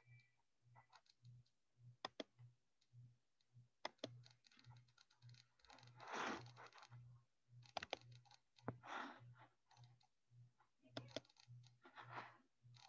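Near silence with faint, scattered computer keyboard and mouse clicks, over a faint low hum that pulses about twice a second.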